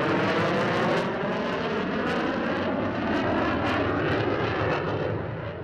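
Jet roar of an RF-4E Phantom II's twin J79 turbojets as it flies past in a display pass: a loud, continuous roar with a slowly sweeping, phasing quality. It fades near the end.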